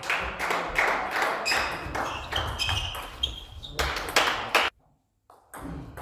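Table tennis rally: the celluloid-type plastic ball clicks off the bats and ticks on the table in quick succession, each hit echoing in a sports hall. Near five seconds in, the sound cuts out for about half a second, and the hits start again after it.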